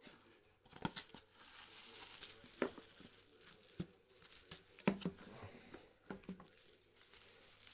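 Small clicks and taps with a soft rustling hiss, the sound of a smartphone and small tools being handled on a bench during a repair.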